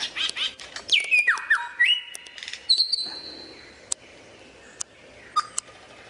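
Samyong songbird singing a varied, fast phrase of clicks, sliding whistles and short chips, ending in one long high held whistle about three seconds in, followed by a few sparse short notes.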